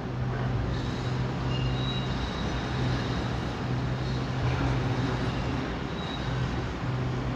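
Diesel engine of demolition machinery running steadily at a low, even hum, with no crashes or impacts.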